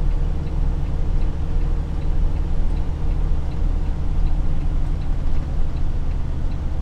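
Semi truck's diesel engine running steadily, heard inside the cab, with the turn-signal indicator clicking evenly about once every three quarters of a second.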